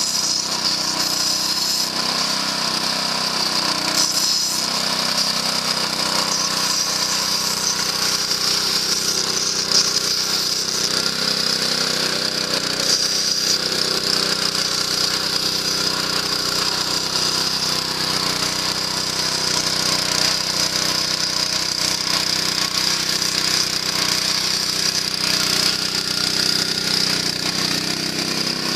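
Small engine-driven water pump running steadily, pumping water through its hose to flood a rice paddy.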